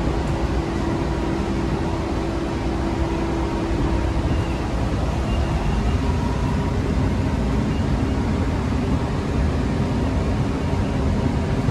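Cabin running noise of a Bombardier Innovia APM 300 people-mover car travelling along its concrete guideway: a steady rumble of rubber tyres with a hum that fades out about four seconds in.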